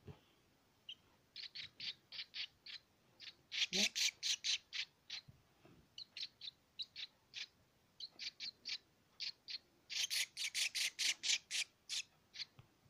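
House martin chicks giving short, high, repeated begging calls while being hand-fed maggots, in quick runs that are densest and loudest about four seconds in and again from about ten to eleven and a half seconds in.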